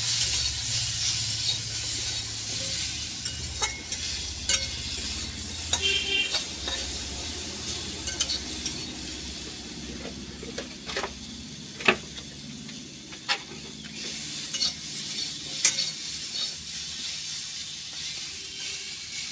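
Raw mango slices sizzling in hot mustard oil in a metal kadai while a metal spatula stirs and scrapes them around the pan, with scattered sharp clicks, the sharpest about twelve seconds in. The sizzle eases a little toward the end.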